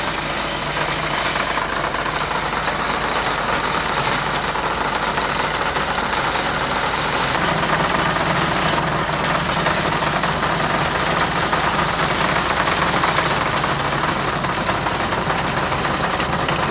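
Wood lathe running steadily while a hand-held turning chisel cuts the spinning wood.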